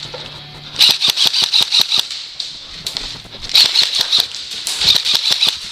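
Airsoft electric rifle firing three full-auto bursts of rapid, evenly spaced shots: about a second in, about three and a half seconds in, and near the end.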